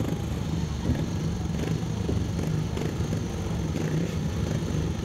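Speedway motorcycles' single-cylinder engines running at a steady drone with small rises and falls.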